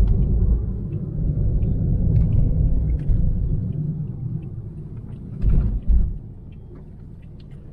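Low rumble of a car driving, heard from inside the cabin, easing off after a few seconds. Two short low thumps come about five and a half and six seconds in.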